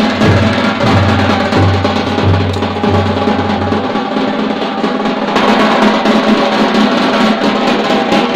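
Several large shoulder-slung drums beaten with sticks in a loud, dense drum roll. A steady low beat, about two a second, runs under it and drops out about halfway through.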